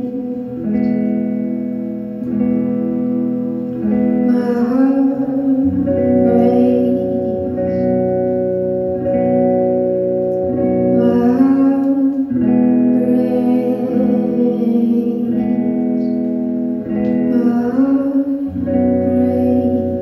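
Live music: slow, held keyboard chords that change every couple of seconds, with electric guitar playing over them.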